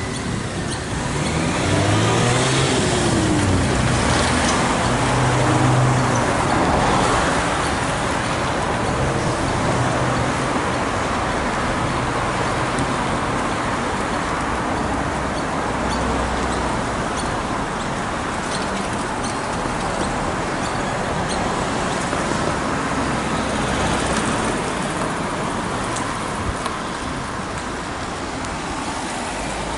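Road traffic: a stream of cars driving past, engine and tyre noise swelling and easing as each one goes by, loudest in the first few seconds.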